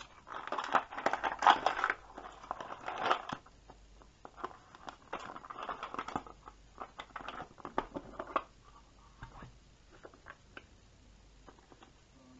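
Hands handling a small plastic box: scraping and rustling against the table for the first three seconds and again about five seconds in as its rubber bands are worked off, then scattered light clicks as it is opened.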